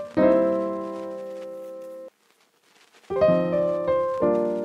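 Background piano music: a held chord cuts off abruptly about two seconds in, a second of silence follows, then the piano comes back with a run of struck chords.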